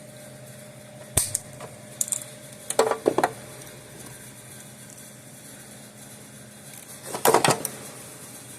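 Hand tools and small parts being handled on a workbench: a sharp click about a second in, a few clicks and rattles around two to three seconds, and another short clatter near the end, over a steady low hum.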